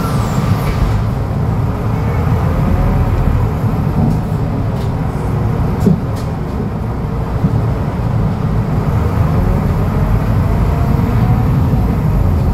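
Scania DC09 five-cylinder diesel engine of a Scania K250UB midibus, heard from inside the passenger cabin while under way: a steady low rumble with a whine that rises in pitch twice as the bus accelerates. A single knock about six seconds in.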